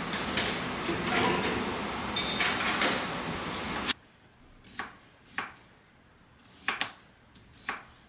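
Busy café ambience with dishes and cutlery clattering, cut off abruptly about four seconds in. Then a knife slices through soft food onto a wooden cutting board, four short knocks about a second apart.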